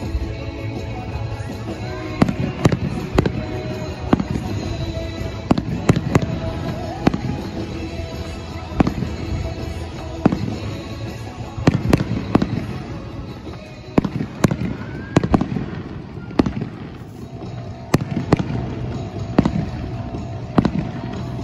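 Aerial fireworks bursting over and over, a sharp bang roughly every second, some in quick doubles and triples, with music playing underneath.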